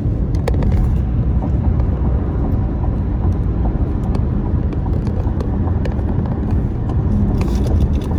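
Steady low road and engine rumble heard inside a car cruising at highway speed.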